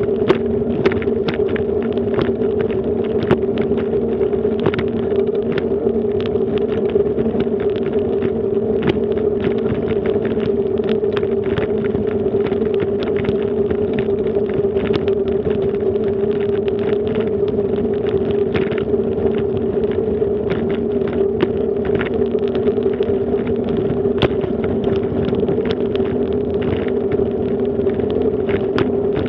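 Bicycle rolling fast over a brick-paved path: a steady, loud hum of tyres on the paving bricks, with irregular rattling clicks from the jolting bike.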